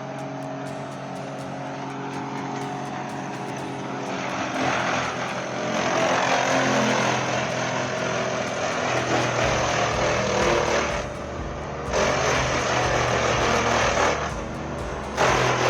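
Large industrial wood grinder running, a steady engine drone with grinding noise, the sound changing abruptly a few times.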